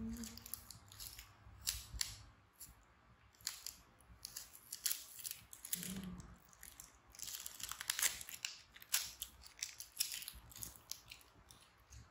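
Close handling noise: scattered clicks, taps and rustles from a plastic tub of cotton swabs and the swabs being handled while a baby macaque's ears are cleaned.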